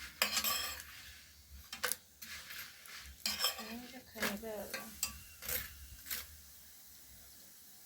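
Kitchen utensils and pots being handled: a series of short clinks, knocks and scrapes that die away near the end.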